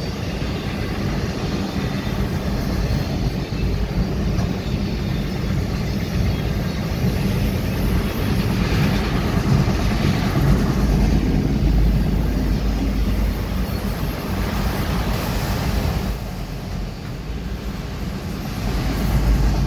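Enclosed autorack freight cars of a long CSX mixed freight train rolling past, a steady rumble of steel wheels on rail that swells and eases a little as the cars go by.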